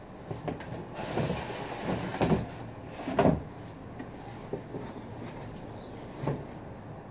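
Corrugated cardboard shipping carton being pulled open: the top panel scrapes and rustles as it is lifted and folded back, in several surges, loudest about three seconds in, then a single dull knock near the end.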